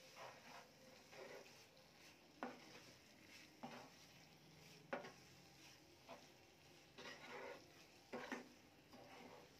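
Faint scraping and stirring of a wooden spatula through thick, crumbly corn-meal halwa in a nonstick frying pan, in irregular strokes, over a low sizzle. The halwa is cooking down so that the syrup from its melted sugar dries off.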